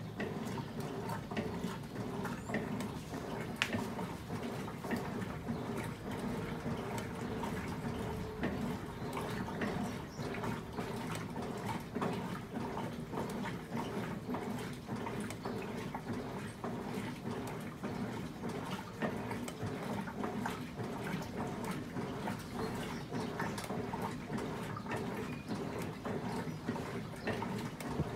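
Electrolux LM08A top-loading washing machine agitating a load of clothes in water: steady churning and sloshing over a low hum, with many small ticks.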